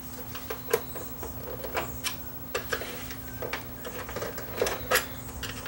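Irregular light clicks and taps, a dozen or so, as hands work on a CD changer's chassis, removing screws and handling its plastic and sheet-metal parts, over a faint steady hum.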